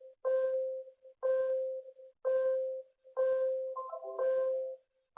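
Earthquake early-warning alert tone from a warning app, a pitched beep repeating about once a second, each one starting sharply and fading over about half a second. A short chime of different pitches, from a second notification, overlaps it near the fourth second.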